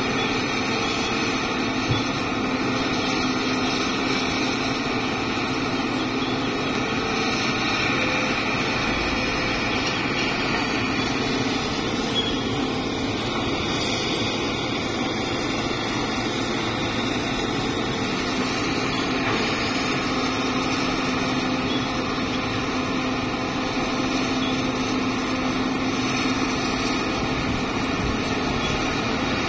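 Diesel engines of a Hitachi crawler excavator and a loaded dump truck running with a steady, even drone.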